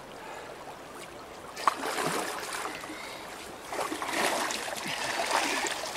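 River water lapping and trickling against a rocky bank, growing louder and splashier after a sharp click about a second and a half in.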